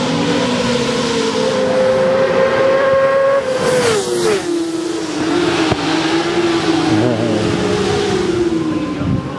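Racing motorcycle engines running at high revs as several bikes go along the circuit at once. About three and a half seconds in, the loudest engine's pitch falls sharply as it passes.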